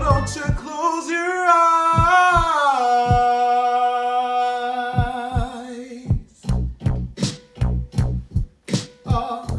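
A man sings a long held note that bends up and down and then holds steady for several seconds, over sparse percussive hits. About six seconds in the note ends and a quick rhythmic beat of percussive hits takes over.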